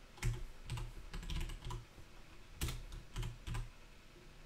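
Computer keyboard keys clicking as a word is typed: irregular keystrokes in small clusters, fading out in the last second.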